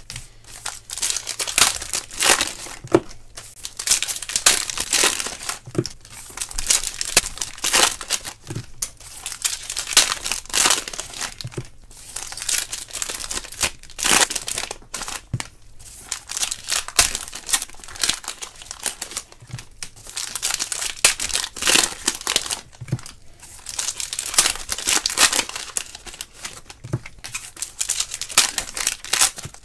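Foil wrappers of 2018 Panini Unparalleled football card packs being torn open and crinkled by hand, in irregular bursts with short pauses between packs, and a few soft knocks.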